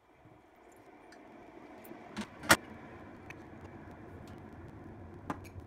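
Single-serve pod coffee brewer running steadily as it heats and pumps hot water into a mug. Two sharp clicks come a little over two seconds in, the second one loud, with another click near the end.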